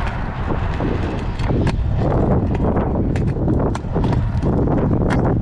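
Stunt scooter rolling over concrete: a steady low rumble from the wheels, with irregular sharp clicks and knocks from the scooter rattling and the wheels crossing the slab joints.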